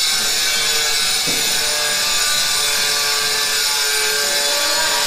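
Handheld power tool grinding granite countertop pieces, running steadily under load as a harsh high hiss with a faint steady whine beneath it.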